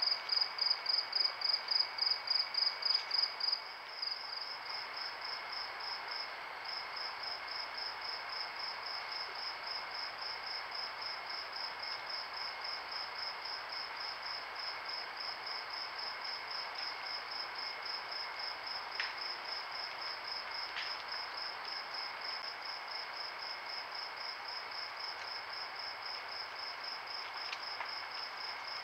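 Night insects chirping: a high-pitched chirp repeating steadily about three times a second, with a fainter steady drone lower down. The chirping is louder for the first few seconds, then softer after a cut about four seconds in, with a few faint clicks.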